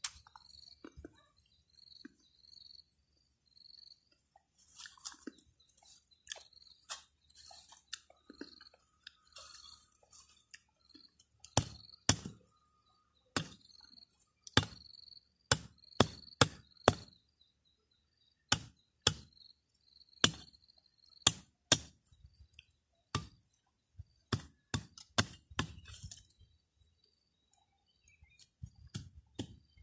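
Sharp chopping strikes of a blade on bamboo while splitting it into strips, irregular and about one a second from roughly a third of the way in; before that, quieter scraping and handling. A faint high chirp repeats through the first half.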